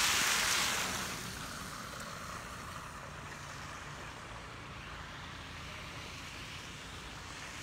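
Steady outdoor rushing noise with a faint low hum underneath, louder for about the first second and then even.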